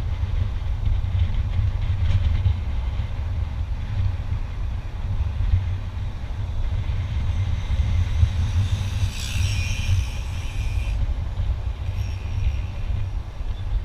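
Wind buffeting an action camera's microphone, with the low rumble of the moving vehicle's engine and tyres, heard from the open back of a small truck on the road. A higher hiss rises over it for about two seconds past the middle.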